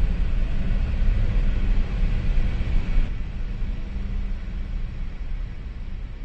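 A steady deep rumbling noise, heaviest in the low end, that eases off slowly from about three seconds in.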